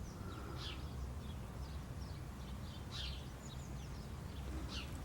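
Faint bird chirps, a handful of short, high, falling notes spread across the few seconds, over a low steady background hum.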